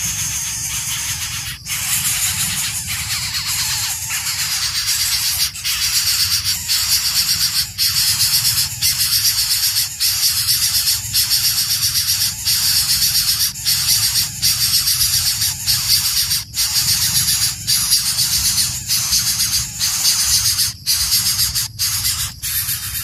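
Shrill, steady insect chirring that pulses in quick regular beats, over a low hum.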